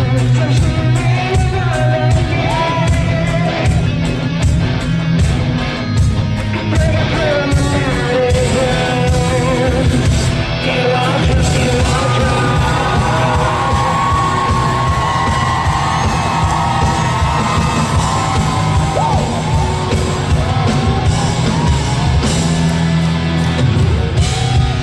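Live band playing the song's instrumental introduction with a steady drum beat, with voices singing and yelling over it.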